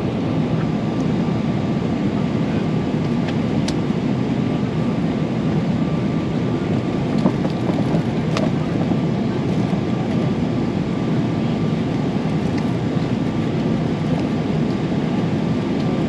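Jet airliner cabin noise in cruise: the steady low rush of engines and airflow, with a faint steady hum and a couple of faint ticks.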